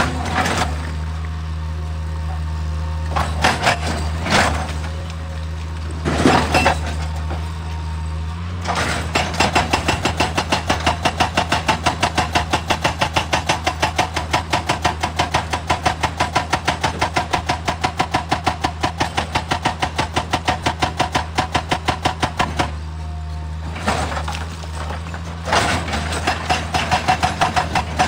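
Excavator diesel engine running steadily, with a few clanks early on. A hydraulic rock breaker then hammers in a rapid, even run of several blows a second, stops for a couple of seconds, and starts again near the end.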